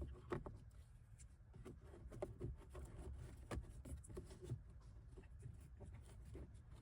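A new cabin air filter being slid into its housing: faint rubbing of the pleated filter's frame against plastic, with scattered light clicks.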